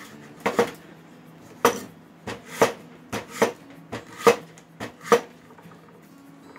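Chef's knife chopping raw butternut squash on a wooden cutting board: about ten sharp knife strikes against the board at an uneven pace, stopping about five seconds in.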